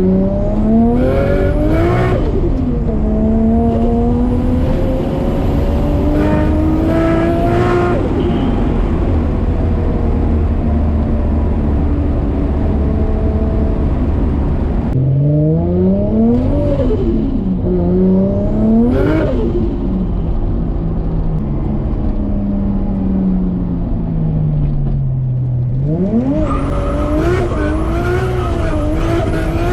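Turbocharged RB25DET straight-six of a fully forged 550 hp Nissan Skyline R33 pulling hard and rising in pitch, then dropping away, several times over. Each lift-off brings a burst of turbo flutter and screamer-pipe noise from the external wastegate.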